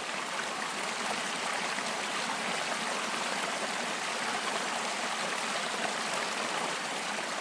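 Creek water running steadily, an even rushing sound with no breaks.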